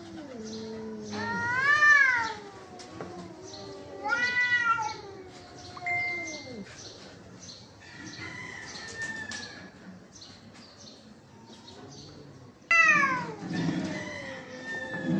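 Two cats caterwauling at each other in a territorial standoff: long, drawn-out yowls that rise and fall in pitch, one after another, with a sudden loud one near the end.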